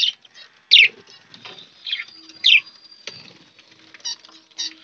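Caged budgerigars and finches chirping: a few sharp, falling chirps with fainter chatter and a thin held whistle between them.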